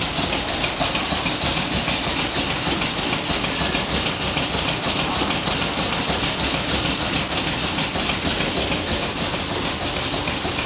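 Stationary engine powering a car-wash set with a 7.5 HP air compressor, running steadily with a fast, even, rhythmic clatter.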